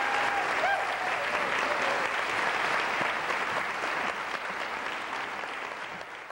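Theater audience applauding at the end of a song, with a few last held notes in the first second; the applause gradually fades out.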